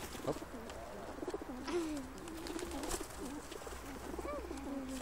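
Domestic pigeons cooing: a run of wavering, low coos, densest in the middle and again near the end, with a few short sharp sounds, one just after the start as a pigeon flaps its wings.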